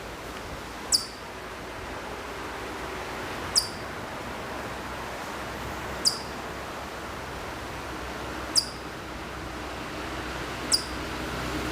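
Ezo chipmunk (Hokkaido chipmunk) repeating a single high, sharp chirp that drops in pitch, five times at a steady pace of about one every two and a half seconds, over a steady background hiss.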